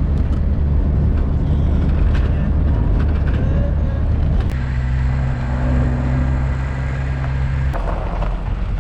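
A road vehicle running while driving, a steady low drone whose note changes abruptly about halfway through and again near the end.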